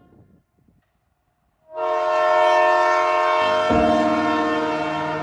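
Train horn sounding one long, loud multi-tone blast that starts suddenly just under two seconds in, after a faint low rumble.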